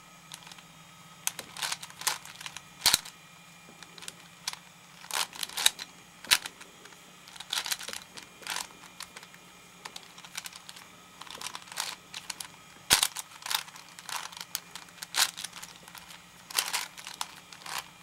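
Plastic clicking and clacking of a V-Cube 5 (5x5 puzzle cube) as its layers are turned by hand, in irregular runs of quick moves with short pauses between them.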